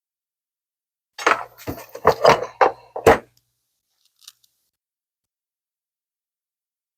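A quick, uneven run of about six clicks and knocks from hard objects being handled, lasting about two seconds, then one faint tick.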